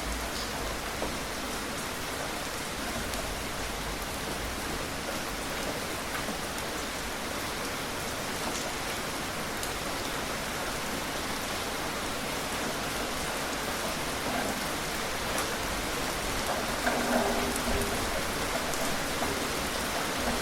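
Steady rain falling, with scattered small drop ticks. A short pitched sound rises above it about three-quarters of the way through.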